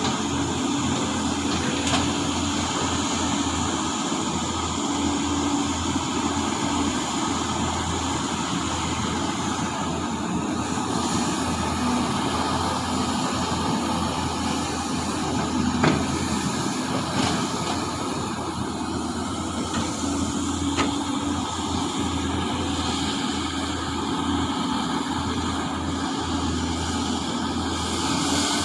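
Heavy diesel engine of a large mining excavator running steadily, with a few brief sharp clanks.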